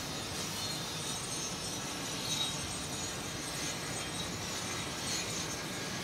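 Steady machine noise from rooftop construction work mixed with wind on the microphone, with a thin high whine on top and small swells about two and a half and five seconds in.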